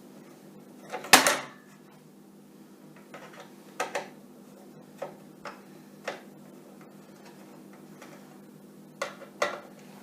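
Scattered clicks and clinks of small metal screws and a screwdriver as the screws are taken out of the LED fixture's card-slot cover, with a louder clack about a second in. A faint steady hum sits under it.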